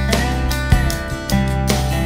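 Background music: strummed acoustic guitar with steady chords.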